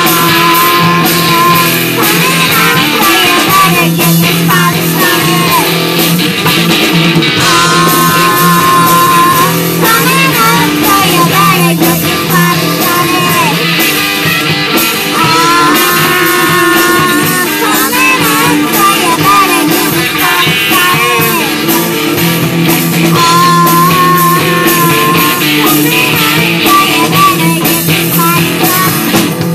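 Live rock band playing: electric guitar, drums and bass, with a sung melody over them.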